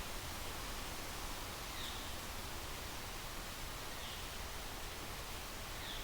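Steady outdoor background hiss with a short, high, falling chirp repeated about every two seconds, three times: a bird calling.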